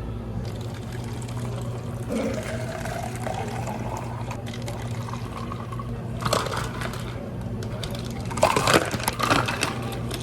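Liquid being poured into a cup for a cafe drink, its pitch rising steadily as the cup fills. Later come two short bursts of sharp clattering, over a steady low hum.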